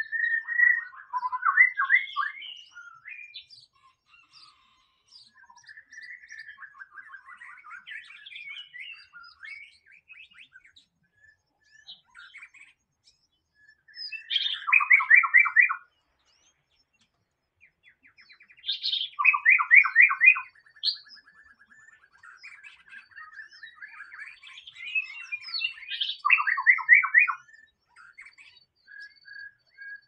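Male white-rumped shama singing: loud phrases of rapid repeated notes at the start, about halfway through and twice more near the end, with softer rambling warbles and short pauses between.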